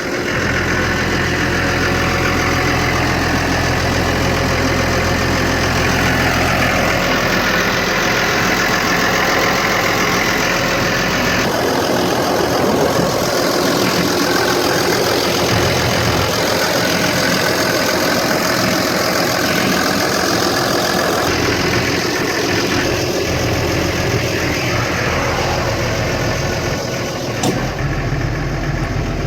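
2009 Case IH Puma 155 tractor's diesel engine running steadily. The character of the sound changes abruptly several times.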